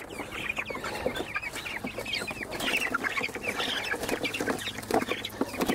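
A flock of about 2½-week-old Cornish Cross broiler chicks peeping: many short, high chirps overlapping one another, with scattered light knocks.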